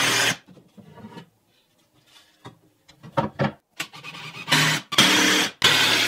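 Cordless drill running in bursts while fastening 2x4 pine cross supports with pilot holes and 2.5-inch deck screws: a few short stabs of the trigger in the middle, then two longer runs near the end.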